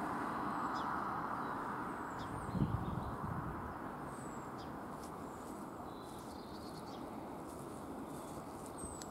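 Small birds chirping now and then over a steady outdoor rumble that slowly fades over the first few seconds. There is a brief low thump about two and a half seconds in.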